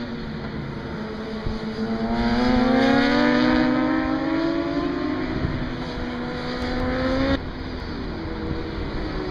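Racing motorcycle engine at high revs, climbing in pitch and getting louder about two seconds in as the bike accelerates, then cutting off abruptly near the end, leaving a quieter, steady engine sound.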